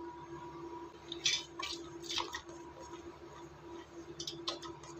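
Soaked, drained chana dal tipped from a plastic strainer into a steel mixer-grinder jar: a few short, wet, squishy spills of the lentils into the jar, over a faint steady hum.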